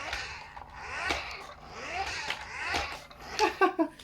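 Small electric drive motor of a 1986 Coca-Cola remote-control toy car whirring. It rises and falls in pitch in repeated swells, about once a second, as the car speeds up and slows down.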